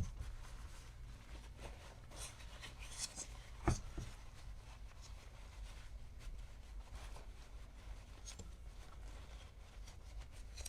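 Faint handling of small cleaned metal vise parts on a workbench: light rubbing and scattered clicks, with one sharper knock a little before four seconds in.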